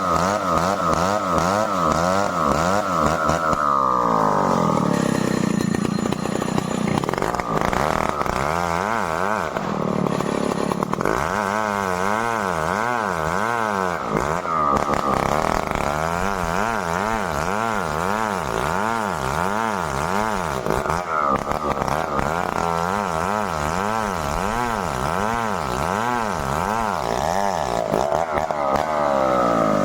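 Stihl 070 two-stroke chainsaw running at high revs, cutting merbau wood. Its engine note wavers up and down about once a second, sagging briefly twice as the load changes.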